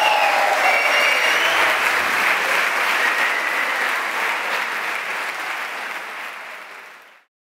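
Concert audience applauding, with some cheering in the first couple of seconds. The applause fades out and stops just before the end.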